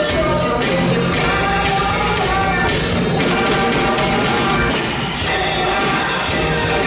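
Live drum kit played along with a recorded pop song with a lead vocal over a full band backing.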